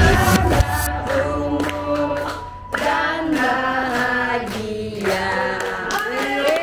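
A group of people singing a birthday song together, with hand clapping along.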